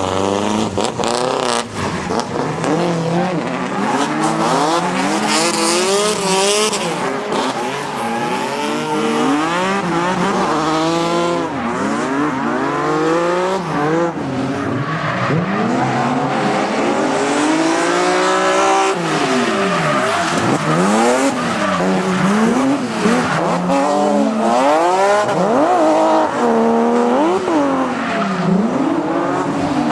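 Drift car engine revving hard, its pitch rising and falling again and again through gear changes and throttle lifts, with tyres squealing as the car slides.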